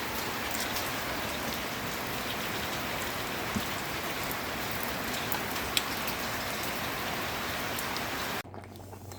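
Steady monsoon rain falling, an even hiss with occasional sharper drop ticks. It cuts off suddenly near the end, giving way to a quieter low hum.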